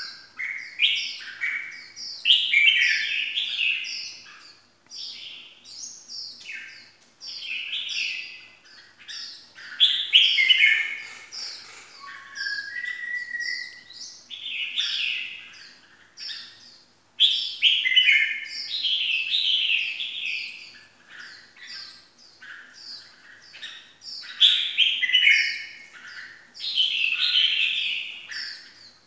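Caged red-whiskered bulbul singing: quick, bright, chattering song phrases repeated in bouts with short pauses between them.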